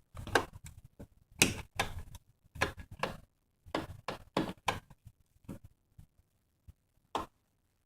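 Switches for a ceiling fan and its light being flipped on and off: a run of sharp clicks at uneven spacing, a pause, then one more click near the end.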